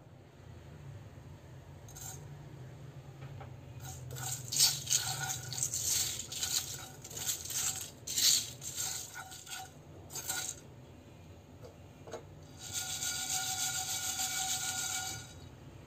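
Freshly dry-roasted whole spices (coriander and fennel seeds, dried red chillies, cardamom pods) stirred in a non-stick frying pan with a silicone spatula: a run of irregular scraping and rattling strokes. Near the end the pan is shaken, and the seeds slide and rattle steadily for a couple of seconds.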